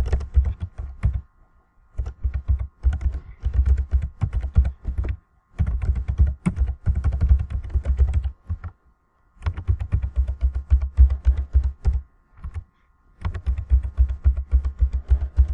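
Computer keyboard being typed on in five quick runs of keystrokes with short pauses between them; the keystrokes are loud and land with a dull knock.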